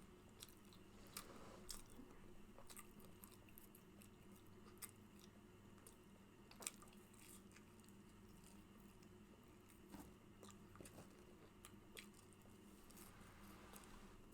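Faint close-miked chewing and lip smacking from someone eating a fast-food burger and fries: scattered wet mouth clicks, the sharpest about seven seconds in, over a faint steady room hum.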